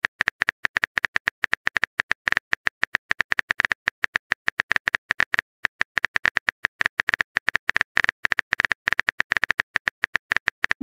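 Keyboard typing sound effect: a rapid, uneven run of short clicks, several a second, as a chat message is typed out.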